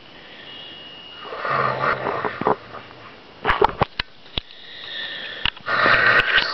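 A girl snoring open-mouthed while congested with the flu. There are two loud snoring breaths, each about a second long, with a quieter rising breath between them. A few short, sharp clicks fall in the middle.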